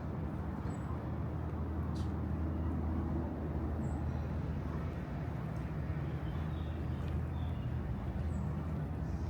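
Steady low rumble of a nearby motor vehicle running amid street traffic, with a few faint high chirps over it.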